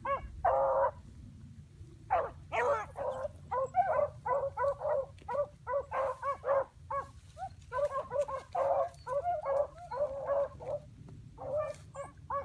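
A pack of dogs barking and yelping, several voices overlapping in quick runs of short, pitched calls, with a pause about a second in and a brief lull near the end.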